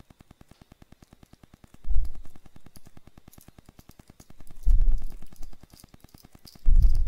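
Three dull low thumps of hands and a precision screwdriver working on an iPhone 4 against a wooden board, about two and a half seconds apart. Faint tiny clicks come as the screws are driven in, over a faint steady rapid ticking.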